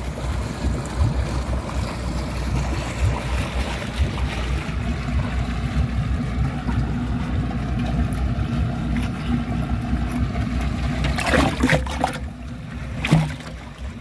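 A small motorboat's engine running steadily, with wind and water noise over it. A few short knocks come near the end.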